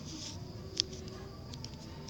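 Steady background noise with one short, sharp click a little under a second in and a few faint ticks later.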